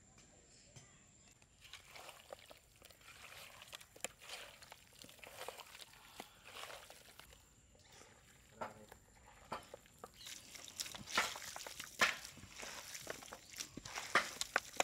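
Hands mixing spice masala and ginger-garlic paste into raw chicken pieces: irregular wet squishing and scraping, busier and louder in the last few seconds.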